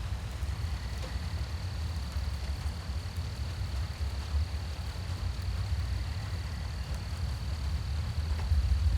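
Night-time rain ambience: a steady wash of rain with a low, even rumble underneath, and a thin, steady high-pitched whine that sets in about half a second in.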